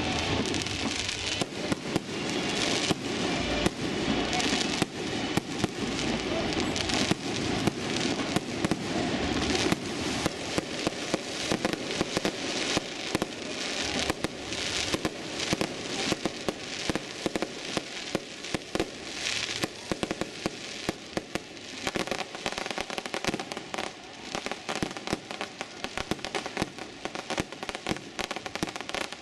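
Aerial fireworks display: a dense, continuous barrage of bangs and crackling bursts, thinning a little in the last third.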